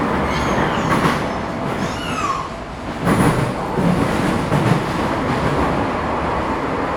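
Metro train running through a tunnel, heard from inside the carriage: a steady rumble of wheels on the track, with a few brief whines, growing louder about three seconds in.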